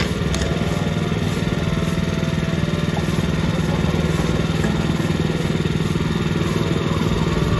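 A small construction-machine engine idling steadily, a constant low drone.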